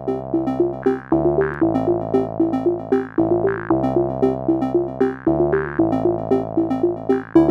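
Electronic background music: a synthesizer pattern of quick repeating notes over a bass line that changes about once a second.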